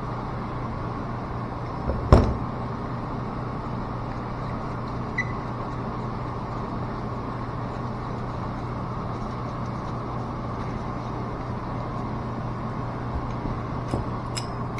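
Steady low hum of running machinery, with one sharp knock about two seconds in and a few light clicks near the end as valve parts or tools are handled.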